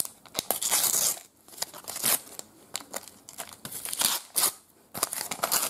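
Thin paper sticker packet being torn open by hand, crinkling and ripping in several short irregular bursts with brief pauses between.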